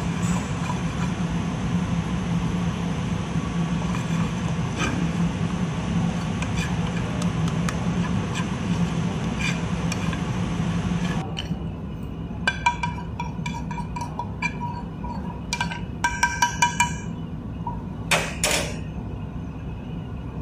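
Whole spices being dry-roasted and stirred in a pan over a gas burner: a steady burner rush with the spoon scraping and clicking in the pan. About halfway through the rush stops, and a series of sharp, ringing metal clinks follows, including four quick ones near the end.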